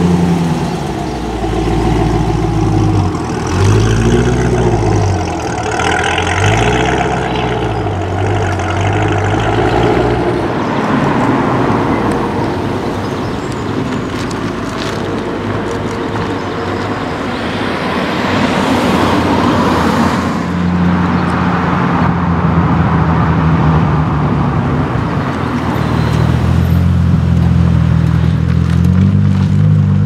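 Sports car engines as cars drive off one after another. A Chevrolet Corvette C6's V8 rises and falls in revs twice in the first several seconds. After a rougher, noisier stretch, a Honda NSX's V6 runs steadily at low revs and revs up near the end.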